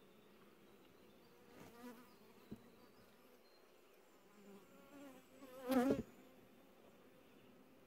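Honeybees buzzing over an open hive in a steady hum. About six seconds in, one bee's buzz swells loud close to the microphone for about half a second, its pitch wavering, with a smaller swell like it just before two seconds and a faint click in between.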